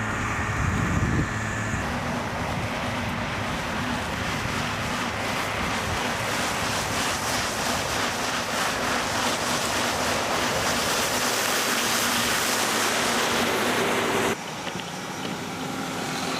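Large airfield snow-removal vehicle running: a steady engine hum, then a dense, even rushing noise of engine and blown snow. About fourteen seconds in it cuts abruptly to a quieter engine running.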